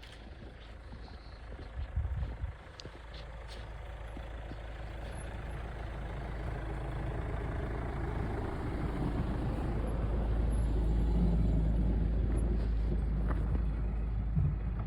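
A motor vehicle running, its engine and road noise rumbling and growing steadily louder over about ten seconds, with a few thumps about two seconds in.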